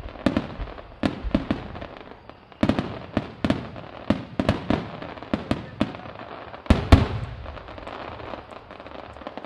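A rapid star-mine barrage of aerial firework shells bursting overhead: irregular sharp bangs, several a second at times, the two loudest close together about seven seconds in, then softer continuous crackling as the barrage thins out near the end.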